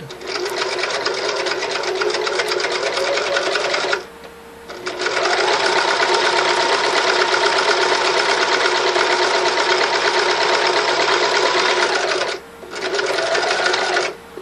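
Electric sewing machine stitching a straight seam with a fast, even stitch rhythm, in three runs with short stops between: about four seconds, then a longer run that speeds up as it starts, then a brief run near the end.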